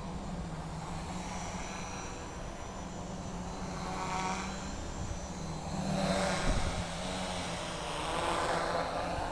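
Small FPV quadcopter's electric motors and propellers whining in flight, rising and falling with throttle and swelling louder about four, six and eight seconds in. A brief low thump comes about six and a half seconds in.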